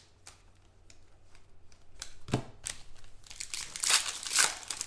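Foil wrapper of a trading-card pack crinkling and tearing as it is opened by hand. It starts quiet with a few small rustles, and the crinkling grows louder, strongest around two seconds in and again near the end.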